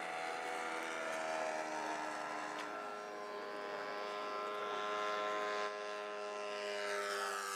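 A radio-controlled model airplane's engine running steadily in flight, with its pitch shifting near the end as it passes by.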